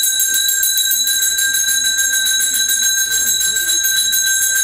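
Metal temple bell rung rapidly and steadily, about eight strikes a second, its bright ringing tones sustained throughout, as accompanies the lamp-waving (aarti) before the deity. Faint voices murmur underneath.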